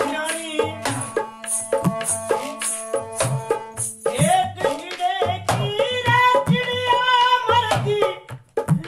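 Folk bhajan music: a dholak drum beats a steady rhythm under held tones, and about four seconds in a wavering melody line joins over the drumming.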